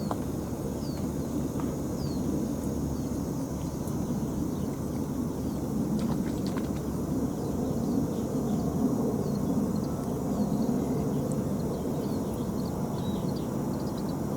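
Steady low outdoor rumble, with faint short high chirps scattered through it, like small birds calling.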